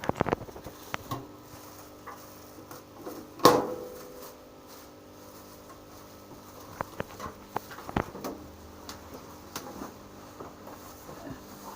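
Handling knocks and clicks: a quick cluster of clicks at the start, one sharp knock with a brief ring about three and a half seconds in, and scattered light taps later, over a steady low hum.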